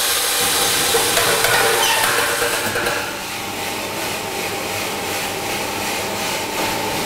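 A charge of green coffee beans pours from the hopper into a drum coffee roaster's hot drum: a dense rattling rush over the running machine. About three seconds in it drops a little to a steady rattle of beans tumbling in the turning drum.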